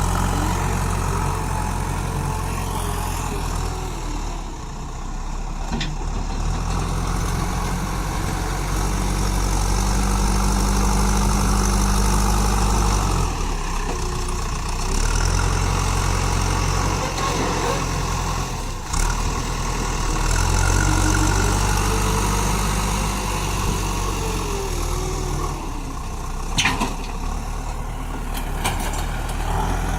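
Diesel engine of a JCB machine working as it pushes soil, its engine note rising and falling several times as the load changes. A few short, sharp knocks sound during it.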